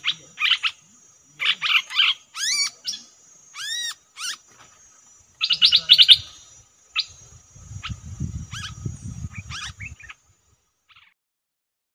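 Small songbirds chirping and calling: quick chattering trills and several arching whistled notes, dying away about ten seconds in. A steady high thin tone runs beneath until about nine seconds, and a low rustling rumble comes in during the second half.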